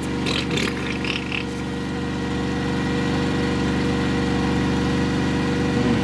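Generator engine running steadily under a load of about 1.2 kW while it charges a battery bank through an inverter-charger.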